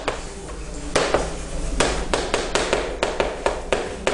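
Chalk writing on a chalkboard: a quick, irregular run of sharp taps and short scratches as each letter stroke is made.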